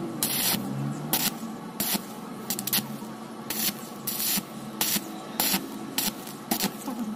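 Electric arc welding on low current: a string of short crackling, hissing bursts, roughly one every two-thirds of a second, as the baffle drum is stitch-welded into an auto-rickshaw silencer.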